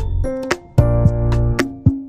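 Background music: a bouncy tune of short, sharply struck notes over a deep bass line.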